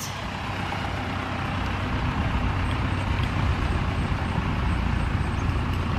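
Engine of a large, heavy vehicle running: a steady low rumble that grows a little louder over a few seconds.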